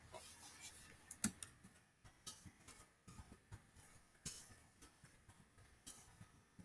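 Typing on a computer keyboard: faint, irregular key clicks, a few a second, with one sharper click about a second in.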